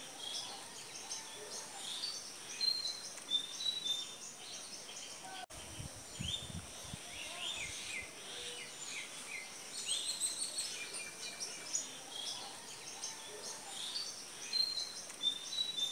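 Many small birds chirping and twittering in a busy chorus of short, quick calls. There are a few low rumbles about six seconds in.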